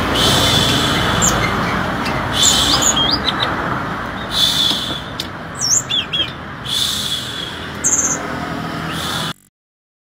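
Tledekan (blue flycatcher) singing short clear whistled phrases every second or two, some with quick rising notes, over a steady background hiss. The sound cuts off abruptly near the end.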